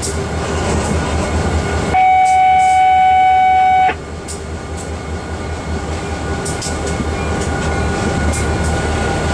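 Diesel locomotive heard from inside its cab, running with a steady low rumble. About two seconds in, a loud, steady single-pitched tone sounds for about two seconds and cuts off sharply.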